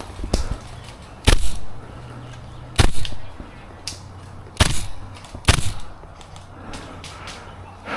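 Airsoft gun firing four single shots, each a sharp snap, spaced a second or two apart.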